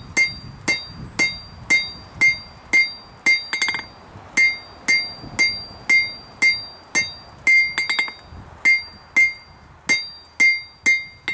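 Hand hammer striking hot steel over the horn of a Peter Wright anvil, drawing the bar out: steady blows about two a second, each with a bright metallic ring, and twice a quick run of light bouncing taps.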